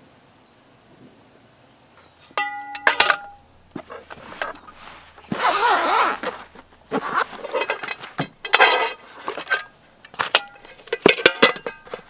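Hard objects being handled: a series of clinks, knocks and rustles, with one ringing metallic clink about two and a half seconds in.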